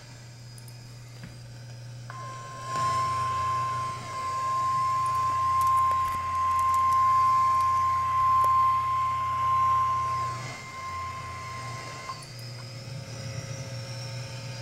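NOAA Weather Radio warning alarm tone, a single steady tone of about 1050 Hz that starts about two seconds in, holds for about ten seconds and cuts off sharply: the signal that a warning broadcast follows. Under it runs a steady low radio hum and hiss.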